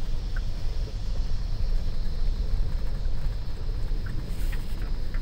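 Ford Ranger FX4 Max pickup driving on a narrow rough road: a steady low rumble of engine and tyres, with a few faint knocks.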